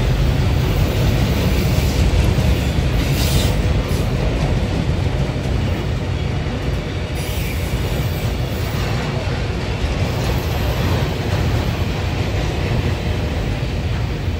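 Freight train of autorack cars rolling steadily past, with the continuous noise of steel wheels running on the rails.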